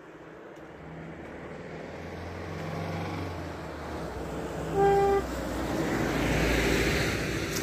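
Road traffic noise building up as a vehicle approaches and goes past, with one short, steady-pitched car horn toot about five seconds in.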